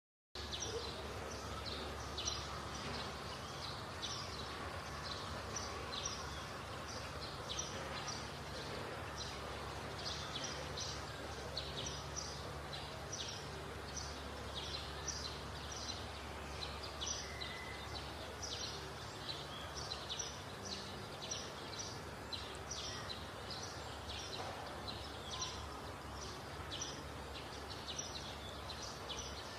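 Outdoor woodland ambience: small birds chirping again and again over a steady low hum, with no power tool or hammer blows standing out.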